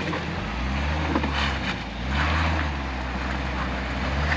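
A four-wheel drive's engine working under load as it crawls up a steep, rutted dirt track, its note dipping briefly about two seconds in. Wind on the microphone adds a rushing noise.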